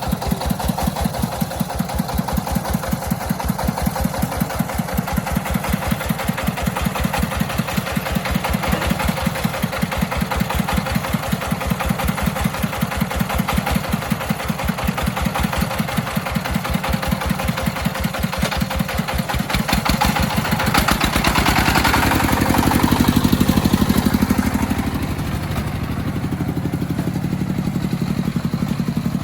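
Engine of an agricultural vehicle running with a steady, even pulsing beat. About twenty seconds in it grows louder for a few seconds, then settles back.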